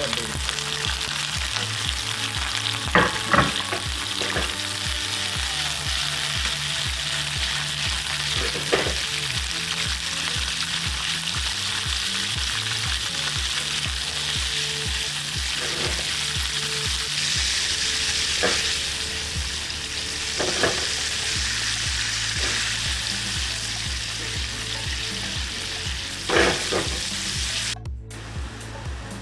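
Food sizzling steadily in hot oil in a pan, with a few sharp clinks of a utensil stirring it.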